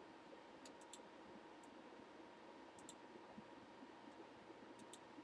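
Near silence with faint room hiss and a handful of short, sharp clicks spread through it, some in quick pairs.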